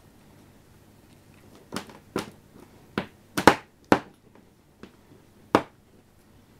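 An unplugged electrical cord whacked against a hardwood floor by a baby: about seven sharp smacks at uneven intervals, starting about two seconds in, the loudest near the middle.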